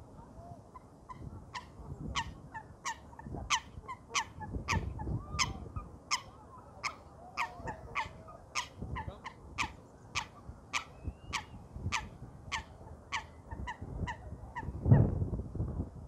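Waterfowl on a pond calling: one short, sharp call repeated about twice a second for some ten seconds. Low gusty rumble, like wind on the microphone, runs underneath, with a louder low thump about fifteen seconds in.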